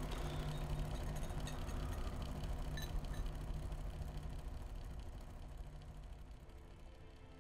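Electric desk fan running with a steady low hum, fading away over the last few seconds, with a single sharp click about three seconds in.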